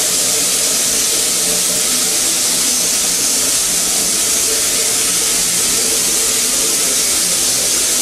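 Small vintage steam locomotive venting steam with a loud, steady hiss that does not let up.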